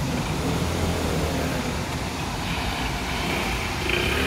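Road traffic at a railway level crossing: car engines running with a steady low rumble, a little louder near the end.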